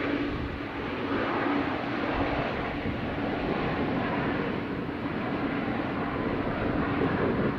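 Airbus A220-300 jet engines during landing: a steady, loud jet rush with a faint steady hum underneath.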